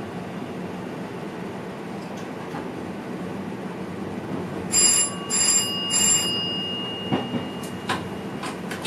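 NS VIRM double-deck electric train running steadily as heard in the cab. About five seconds in, a chime rings three times in quick succession, the signal that comes before an onboard station announcement, followed by a few sharp clicks.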